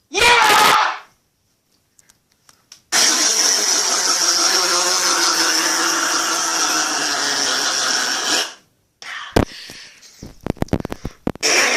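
A person's short strained vocal 'ah' of a sneeze that won't come. Then a hard, loud nose blow that rushes on for about five seconds, a few short sharp noises, and another hard nose blow starting near the end.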